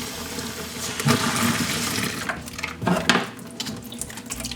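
Water running from a tap to dilute a degreaser cleaning mixture; it gets louder about a second in, with a couple of brief sharper sounds around the middle before it eases off.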